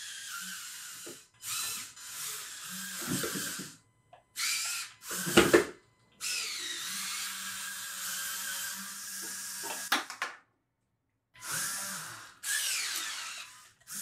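Small electric motors and plastic gear trains of a LEGO Technic climbing car whining in short runs of a second to a few seconds, stopping and starting again as it climbs. There is a loud plastic clack about five seconds in, and a rising whine near the middle.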